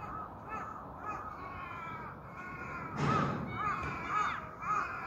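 Crows cawing over and over, short hoarse calls that grow louder from about three seconds in, about two a second.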